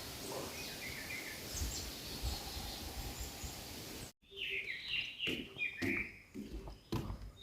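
Forest birds chirping over a steady hiss of outdoor ambience. After a sudden cut a little past halfway, a bird sings clearer runs of short falling notes, with a few sharp knocks among them.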